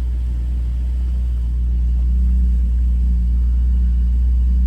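Ferrari engine running under way, a steady low rumble that grows a little louder over the first couple of seconds.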